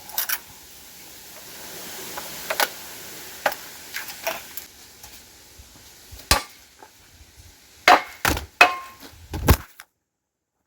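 Irregular knocks and clanks of hand tools striking metal, with a cluster of louder hits about two-thirds of the way through; the sound cuts off suddenly near the end.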